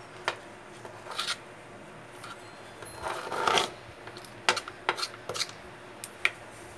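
Short scrapes and rubbing with scattered sharp clicks, from grout paste being worked into the joint between the sink countertop and the wall tiles.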